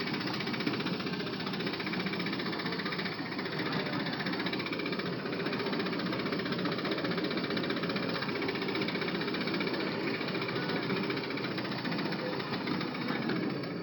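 Ride-on miniature garden train running: a steady, dense mechanical clatter from its engine and running gear.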